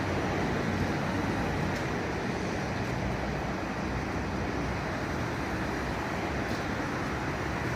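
A vehicle engine running steadily, a low even rumble mixed with street traffic noise.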